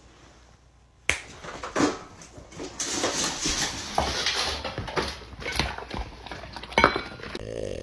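Dogs eating raw meat from stainless-steel bowls on a hard floor. The metal bowls give sharp clinks and knocks, the first about a second in, with scraping and eating noises in between.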